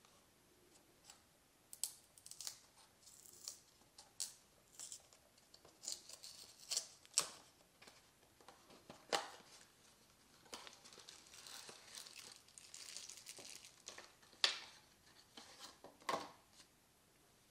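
A small cardboard box being opened by hand: the glued flap peels and tears, then paper and plastic packets rustle. It comes as a string of faint short scrapes and crackles, with a longer rustle in the middle.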